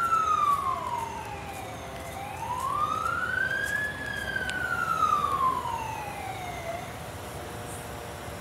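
Fire truck siren sounding a slow wail: the pitch falls, climbs again from about two seconds in to a peak near four seconds, then falls away.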